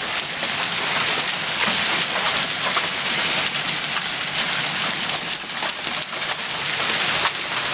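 Heavy rain and hail coming down together: a dense, steady hiss peppered with many sharp ticks of hailstones striking, some of them around an inch long.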